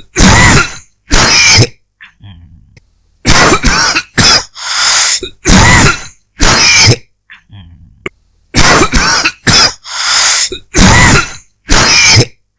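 A person coughing with a dry cough, in three bouts of short, loud coughs: two, then five, then five, with brief pauses between the bouts.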